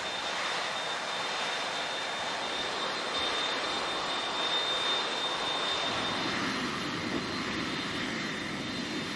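Turbofan jet engines of a C-5M Super Galaxy running on the ramp: a steady rushing noise with a thin, high, steady whine.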